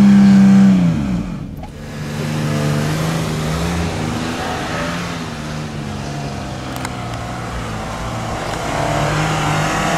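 Toyota Land Cruiser Prado's engine revving hard while trying to drive up a sandy hill; its pitch drops sharply about a second in as the revs fall, then it runs at lower revs that rise and fall, picking up again near the end.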